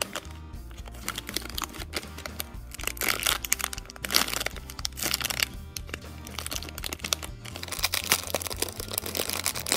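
Clear plastic bag crinkling and crackling in irregular sharp bursts as it is handled and pulled open at its sealing strip, over background music.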